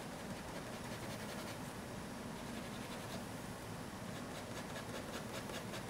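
Marker tip scratching across paper in many quick, short shading strokes, faint, over a low steady room hum.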